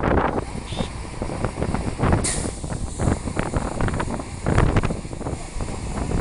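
Rumble of a moving road vehicle, with frequent knocks and clatter and a short sharp hiss a little over two seconds in.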